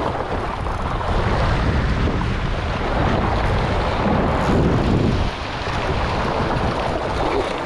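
Wind buffeting the microphone over waves washing against shore rocks: a steady rushing noise that drops a little about five seconds in.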